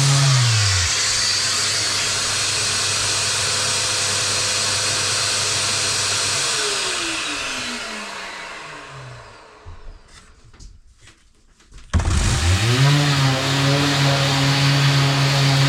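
An electric power tool's motor running with a hiss, winding down in falling pitch to a stop, then, after a brief near-quiet pause, starting up again and rising to full speed about twelve seconds in.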